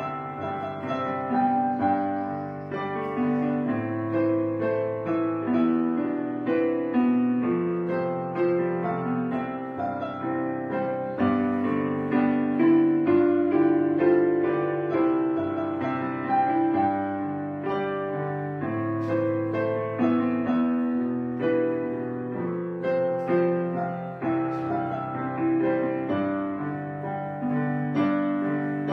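Background piano music: a gentle, steadily played melody over held chords.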